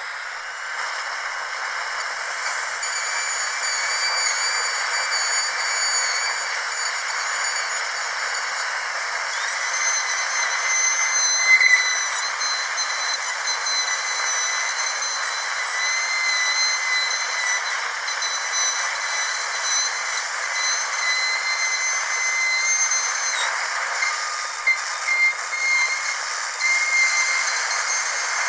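Dental drill running with a high whine over a steady hiss; the whine wavers slightly in pitch and shifts a few seconds before the end.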